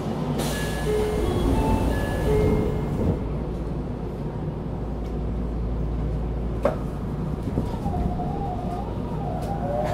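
Running sound inside a Tokyo Metro 02 series VVVF-inverter subway car: a steady rumble of wheels on rail, with short steady whining tones in the first few seconds. A sharp click comes about two-thirds of the way in, and near the end a wavering whine rises in pitch.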